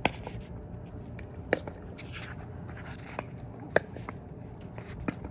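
Pickleball rally: about five sharp pops of paddles and a hard plastic ball at uneven intervals, the loudest right at the start, about a second and a half in, and near four seconds in.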